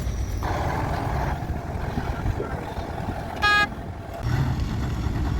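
Heavy diesel machinery running steadily with a low rumble, with a short horn toot about three and a half seconds in.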